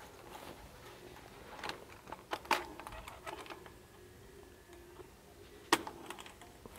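A hiker's footsteps on a stony mountain trail: scattered sharp clicks and scuffs of boots on rock and gravel. A cluster comes a couple of seconds in and a single loud click near the end.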